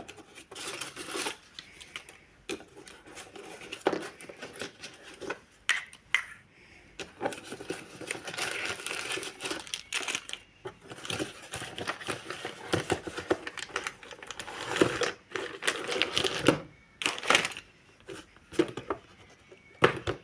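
Hands opening a slime-making kit's packaging: crinkling and tearing of the wrapping mixed with scattered clicks and taps as the box and its contents are handled.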